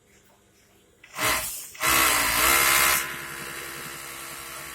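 A freshly serviced machine's motor starting up, rising in pitch as it spins up, then settling to a steady even running tone.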